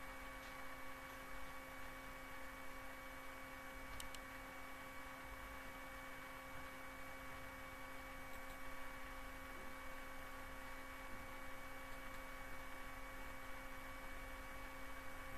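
A steady electrical hum with a few thin overtones over a faint hiss, with one faint click about four seconds in.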